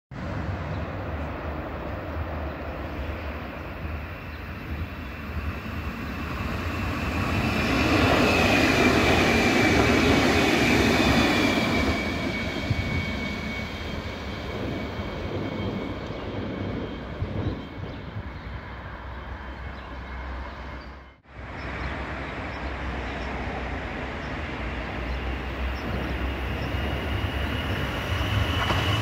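Electric passenger train passing on the line, loudest a few seconds in, with a high whine that falls in pitch as it goes by. After a sudden break, another train approaches, growing louder with a steady high whine.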